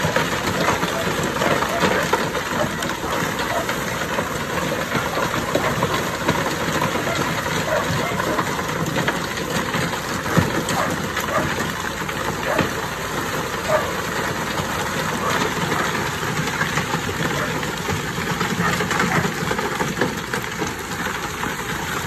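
Concrete mixer truck's engine running while wet concrete pours down the discharge chute and splatters onto a bed of stones, a steady rushing noise with a few sharp knocks.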